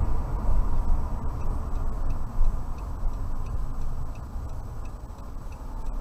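A car's turn-signal indicator ticking evenly about twice a second, starting a second or so in, over the steady low rumble of the car's engine and tyres on the road, heard inside the cabin.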